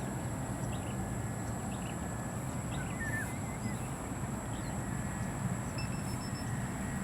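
Steady low rumble of outdoor background noise, with a bird chirping briefly about three seconds in.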